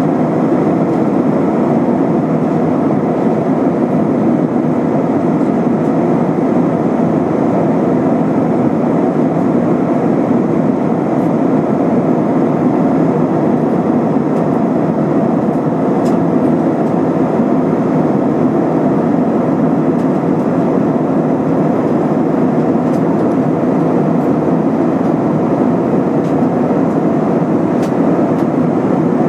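Steady, unbroken cabin drone of an Airbus A320-232 in flight: its IAE V2500 turbofan engines and the rushing airflow heard from inside the passenger cabin.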